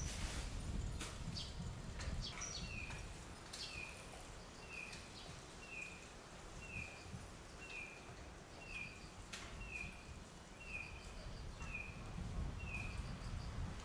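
A short high chirp repeated evenly about once a second, each note falling slightly, over a steady low outdoor rumble, with a few sharp clicks in the first few seconds.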